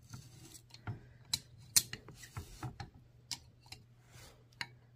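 Threaded spring collar on a Raceland coilover being turned with a spanner wrench to set spring preload: irregular light metallic clicks and taps, the loudest about two seconds in.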